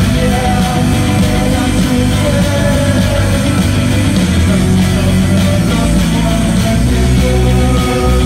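Live rock band playing: electric guitars, bass guitar, keyboard and drum kit, loud and continuous.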